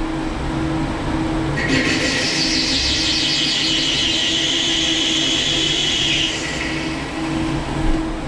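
CNC lathe rough-turning a hardened C40 steel flange: a steady machine hum, with a high-pitched hiss from the insert cutting the steel that comes in about two seconds in and dies away a little after six seconds.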